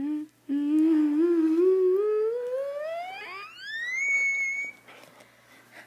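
A rubber squeaky dog toy being squeezed in a dog's mouth: a short squeak, then one long wavering squeal that climbs slowly in pitch, sweeps sharply higher after about three seconds, holds briefly and cuts off.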